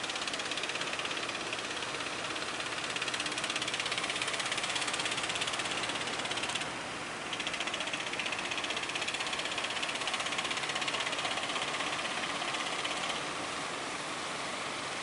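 Fishing boat engines running with a fast, even clatter over the hiss of surf. The clatter eases near the end.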